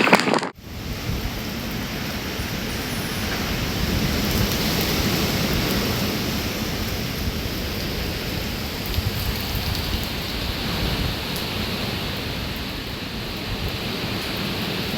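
Hurricane wind and rain: a steady rushing noise with a low, shifting rumble, starting after a sudden cut about half a second in.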